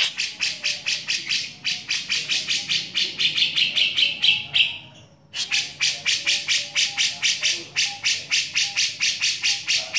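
Caged grey-cheeked bulbul (cucak jenggot) giving its rapid 'beset' chatter: sharp, harsh notes repeated evenly about four to five times a second, with a short pause about halfway through.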